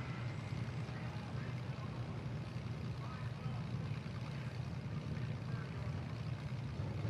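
Engines of a field of compact demolition derby cars running steadily at idle together, a continuous low engine hum without crashes or impacts.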